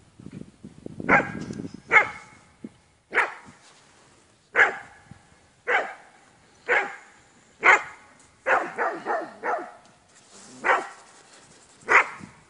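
A dog barking repeatedly, about a dozen sharp barks roughly one a second, with a quick run of four barks a little past the middle.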